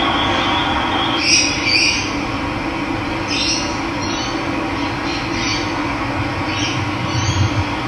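Running water rushing steadily, with birds giving short calls several times, mostly in pairs. A thin high whistle stops about a second in.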